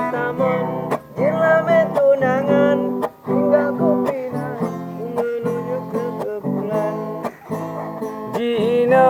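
Acoustic guitar strummed in steady chords, with a man singing along over it.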